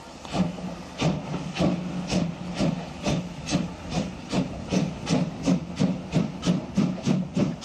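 German class 52 steam locomotive pulling away, its exhaust chuffing in an even beat that quickens from about two to nearly three beats a second. Steam hisses from the open cylinder drain cocks.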